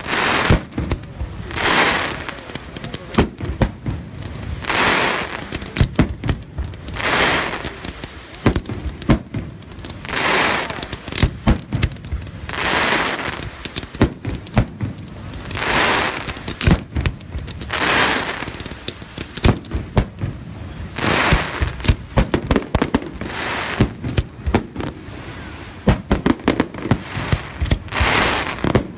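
Fireworks display: shells and fountains going off, a swelling whoosh-like hiss every two or three seconds, with many sharp bangs and crackles between and over them.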